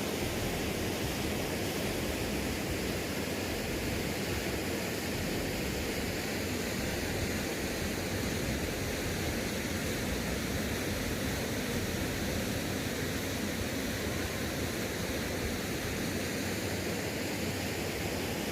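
Waterfall: a steady, unbroken rush of falling water, fullest in the low and middle range, with no change throughout.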